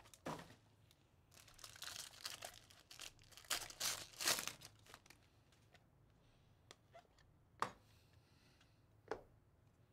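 Foil wrapper of a Bowman Chrome baseball card pack being torn open and crinkled, a run of rustling tears lasting a few seconds, followed later by two short clicks as the cards are handled.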